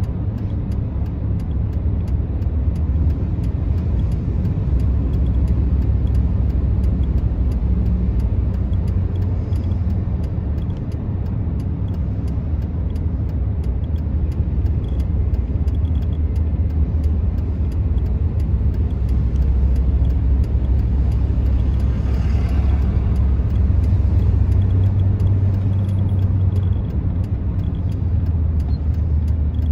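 Steady low rumble of a moving car's engine and tyres, heard from inside the cabin, with a brief soft whoosh about three-quarters of the way through.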